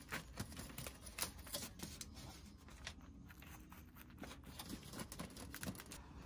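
Faint, irregular light clicks and taps of small objects being handled.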